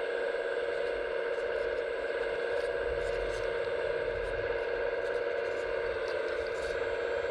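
Hydraulic pump of a radio-controlled scale excavator running with a steady, even whine, with faint light ticks and rattles over it.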